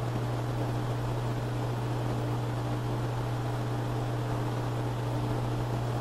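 Steady low hum under an even hiss, unchanging throughout, with no separate knocks or taps.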